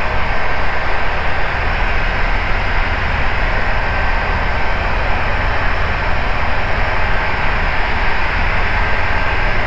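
Ikarus C42B microlight's engine and propeller running steadily in level cruise, with rushing airflow, as heard in the cockpit. A thin steady whistle sits over the noise.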